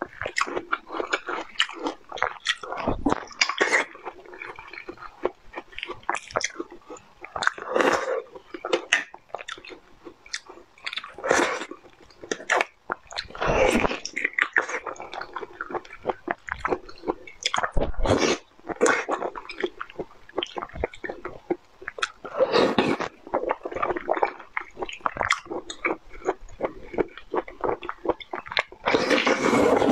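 Close-miked eating sounds: a person biting and chewing soft food, with irregular quick clicks and smacks and louder clusters every few seconds.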